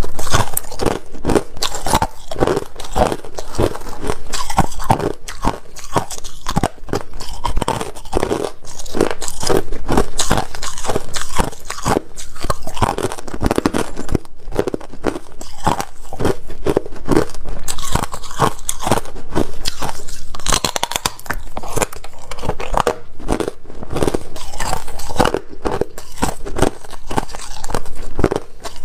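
Pieces of clear ice crunched and chewed right at a clip-on microphone: a dense, unbroken run of sharp cracks and crunches.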